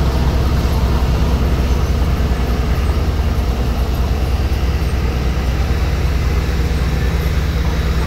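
Heavy earthmoving machine's diesel engine running steadily, a loud deep drone that holds constant.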